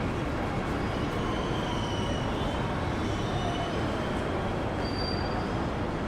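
Rail vehicle rolling along the track with a steady rumble, its wheels giving thin high squeals that come and go over it, a short sharper squeal about five seconds in.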